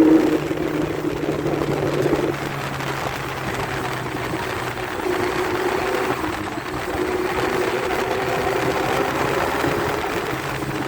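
A 600 cc motorcycle engine running while the bike is being ridden, a steady engine note over a broad rush of noise, its pitch shifting a few times.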